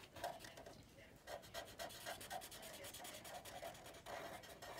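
Felt-tip Sharpie marker scrubbing on paper in short, quick back-and-forth strokes, about four or five a second, as a small circle is colored in solid. Faint.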